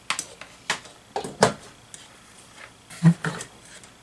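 Plastic plugs and power adapters clicking and knocking as they are handled and rearranged: about half a dozen sharp clacks, with a duller thump about three seconds in.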